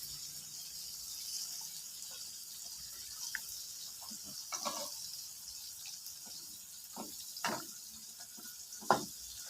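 Steady hiss of running water in a kitchen sink, with several short knocks and clatters of utensils or ingredients being handled, the loudest near the end.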